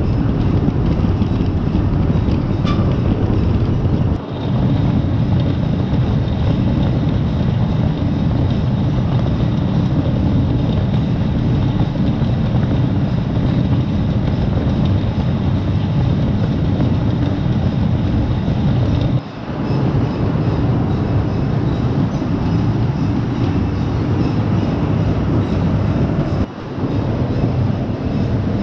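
Heavy farm machinery running steadily, a loud continuous diesel rumble with a faint high whine through the first half. The level briefly drops three times, about four, nineteen and twenty-six seconds in.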